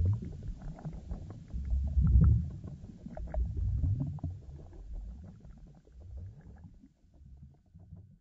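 Low, uneven rumbling with scattered crackles, fading away over the last second or two.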